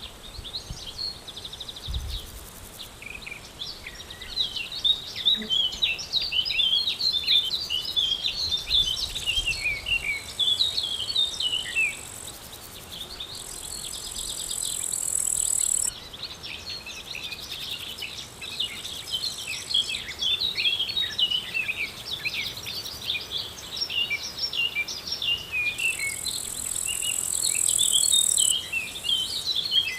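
Many small birds chirping and twittering busily, with an insect's high, steady buzz that swells twice and cuts off suddenly, about halfway through and near the end.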